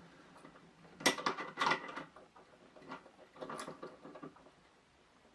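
Clicks and rattles of the metal parts of an aluminium fixed-angle knife-sharpening frame being handled and adjusted. They come in a few short clusters, the loudest about a second in.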